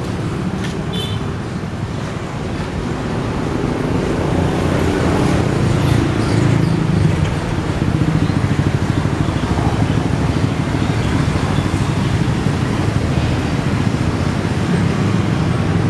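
Steady road traffic running, a low rumble that grows a little louder about four seconds in and then holds.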